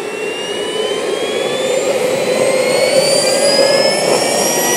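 Wren MW54H model gas turbine engine spooling up in its automatic start sequence: a whine rising steadily in pitch over a rushing noise that grows louder.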